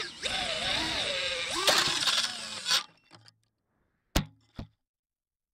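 FPV quadcopter's motors whining, their pitch rising and falling with the throttle, then stopping abruptly about three seconds in as the drone crashes and comes to rest upside down. Two sharp clicks follow near the end.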